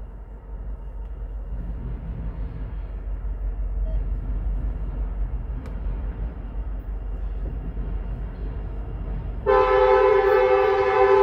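Low, steady rumble of a diesel freight train, then near the end the locomotive's air horn sounds loudly, a chord of several tones held until the end.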